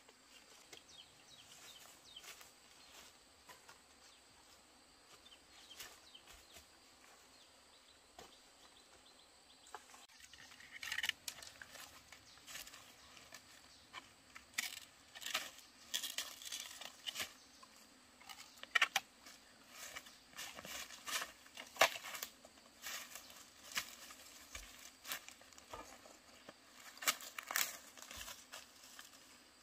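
Irregular crackling and rustling of dry leaf litter and a bamboo pole being handled and walked over, starting about a third of the way in after a quiet stretch with only a faint hiss.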